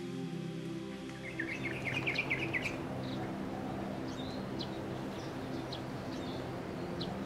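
Birds chirping over a steady background haze. A quick trill of chirps comes about a second in, followed by scattered short calls.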